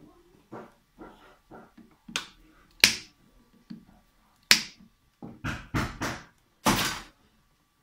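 A string of short, sharp snaps and clicks as insulated pliers cut through the wires of a ceiling spotlight's driver box, with handling of the box and wires.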